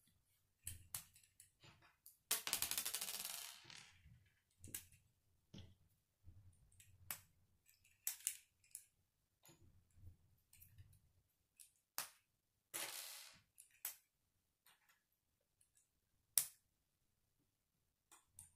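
Plastic K'nex pieces being handled and snapped together: a scattered series of sharp clicks, with two longer rattles, about two seconds in and again about twelve seconds in.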